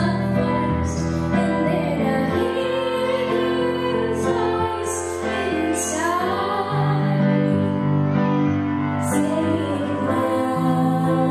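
A woman singing a song with long held notes over instrumental accompaniment.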